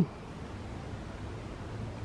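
Steady outdoor background noise in woodland: a faint, even hiss with no distinct sounds in it.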